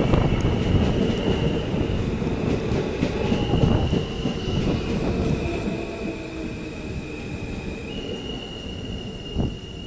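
R160 subway train rolling into the platform and slowing. The wheels and cars rumble loudly, with high steady squealing tones that shift in pitch a few times. The rumble eases as the train slows, and there is a short knock near the end.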